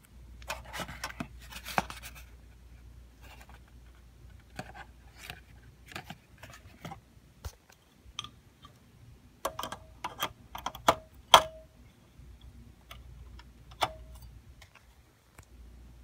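Irregular clicks and knocks from handling a small fluorescent light fixture and its pull cord, a few ringing briefly, the loudest cluster about ten seconds in, over a steady low hum.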